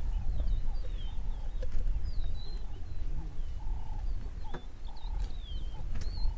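Lions feeding on a wildebeest carcass, with two sharp cracks of crunching bone, about four and a half and six seconds in. Over a low rumble, birds chirp again and again in short high gliding notes.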